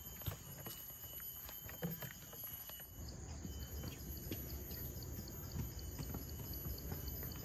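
Footsteps on a dirt forest trail strewn with dry leaves: irregular steps, scuffs and leaf crunches. From about three seconds in, a high insect chirp repeats about three times a second over a steady insect drone.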